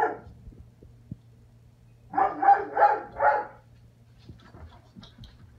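Puppy barking: one bark right at the start, then four quick barks in a row about two seconds in.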